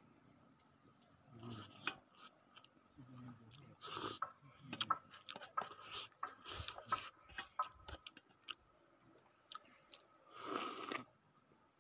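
A man eating rice by hand, chewing with wet mouth clicks and small crunches, faint and intermittent, with a short louder noisy sound about ten seconds in.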